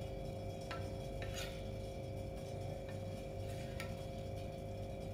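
A steel ladle stirring thin wheat-flour batter in a steel bowl, with a few faint clinks against the bowl, over a steady low hum.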